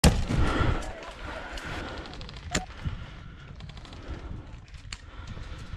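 Airsoft sniper rifle firing: a sharp shot right at the start followed by about a second of rumble, then two more sharp cracks about two and a half and five seconds in.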